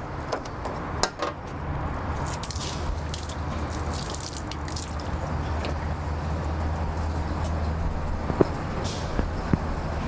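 Water from a garden hose running into a truck's DEF tank in place of diesel exhaust fluid: a steady hiss over a low steady hum, after a few clicks near the start.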